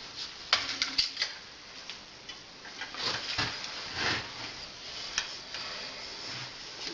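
Irregular light clicks and taps from hand work, with a few brief scraping or rubbing sounds in the middle.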